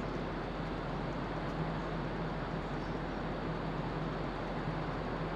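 Steady rumble and rush of the ferry Ogasawara Maru under way, with a constant low hum and no changes.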